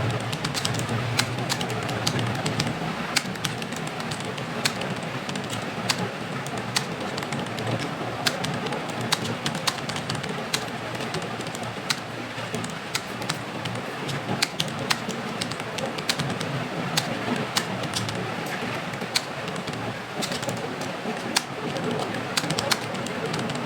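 Computer keyboard being typed on: irregular keystroke clicks, a few a second, over steady background noise.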